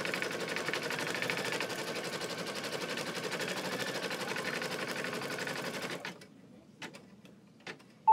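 Baby Lock embroidery machine stitching a placement outline onto bare stabilizer, a fast even chatter of needle strokes that stops about six seconds in. Two faint clicks follow.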